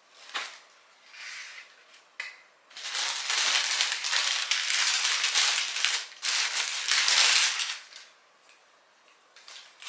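Tissue paper crinkling and rustling as it is unfolded from around a pair of shoes in a cardboard shoebox, loud and continuous for about five seconds from roughly three seconds in, after a few lighter knocks and scrapes of the box lid being opened.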